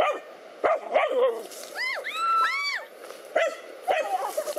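Dogs barking in short single barks, with a quick run of high, arching yelps about two seconds in.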